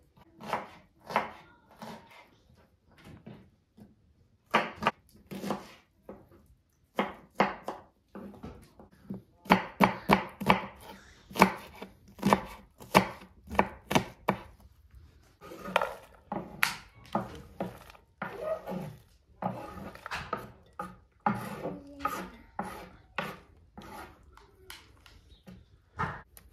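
Kitchen knife chopping onion on a wooden board: sharp knocks of the blade on the wood in irregular runs, a few spaced strokes at first, then quick rapid runs through the middle.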